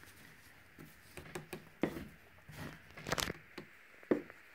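Scattered light clicks and taps of a thin metal painting tool being handled over a tile and taken to a glass dish of alcohol ink, with a tight cluster of louder clicks about three seconds in.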